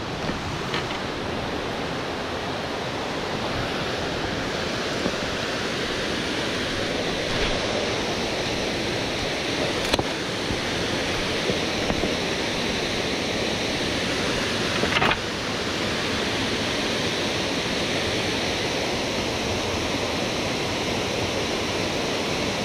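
Steady rushing of waterfalls pouring into a rock-walled plunge pool, with a few brief clicks, the clearest about ten and fifteen seconds in.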